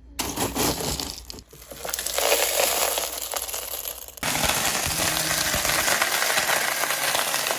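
Hard scrap plastic flakes clattering and rattling as they are shaken and poured out of a grinder jar. About four seconds in, a blender starts grinding the plastic, a steady, dense clatter that is the loudest part and cuts off abruptly near the end.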